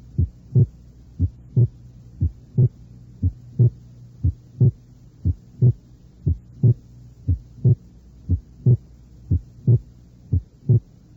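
Simulated heart sounds at about sixty beats a minute. Each beat is a first sound followed about 0.4 s later by a louder second sound, over a faint steady hum. The second sound is a split sound with one component being accentuated so that it masks the split.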